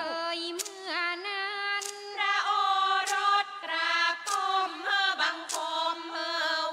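Thai classical singing for a lakhon nok dance-drama: a long, ornamented sung line with slowly wavering held notes, kept in time by sharp percussion strikes about once a second.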